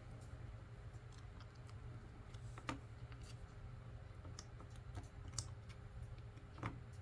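Plastic LEGO pieces clicking and tapping as they are handled and pressed into place, with a few sharper clicks among lighter ticks.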